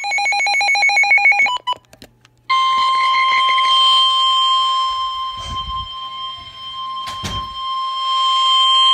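A burst of rapid warbling digital data tones (the SAME header that opens an Emergency Alert System message) stops after about a second and a half. After a short gap comes the steady, single-pitched 1050 Hz NOAA Weather Radio warning alarm tone, which holds on, with two brief low thumps partway through.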